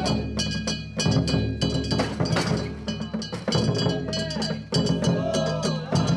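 Live festival music: quick, dense percussion strikes over steady high ringing tones, with wavering pitched notes over them at times.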